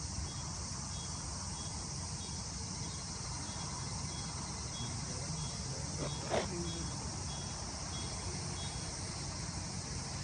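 Insects shrilling steadily in the grass: a high-pitched hiss with a short chirp repeating about twice a second, over a low rumble. A single sharp knock about six seconds in.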